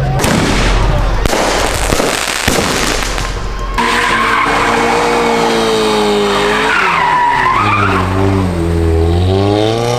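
Sports car drifting with tires skidding and squealing. First comes a loud rush of tire noise. From about four seconds in the engine is held at high revs, its note rising and falling, with a squeal that dips and climbs again near the middle.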